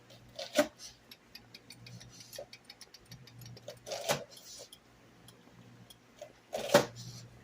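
Kitchen clatter of utensils and cookware: a run of light clicks and three sharper knocks, over a low steady hum.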